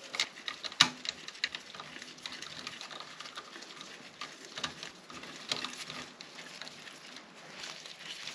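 Rain pattering, with scattered light clicks and taps throughout, a sharper one about a second in.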